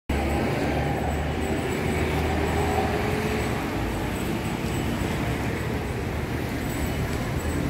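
Steady low rumble with an even hiss of background noise, with no distinct events.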